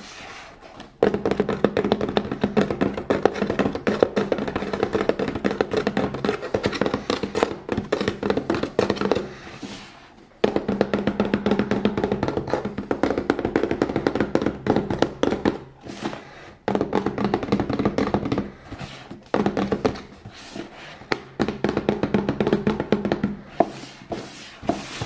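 Fingertips tapping rapidly on a cardboard box in long, dense runs, the box resonating with a hollow drum-like sound, with brief pauses about ten seconds in and again around sixteen, nineteen and twenty-one seconds.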